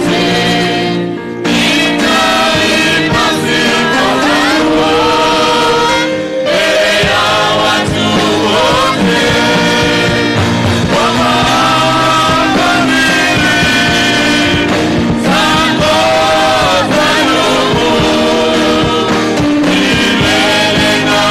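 Gospel music: voices singing over a full instrumental backing, with brief breaks about a second in and about six seconds in.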